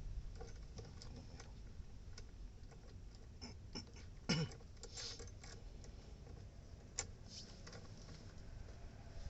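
Small metal tools being handled: scattered light clicks and taps, with one louder knock about four seconds in and a sharp click about seven seconds in.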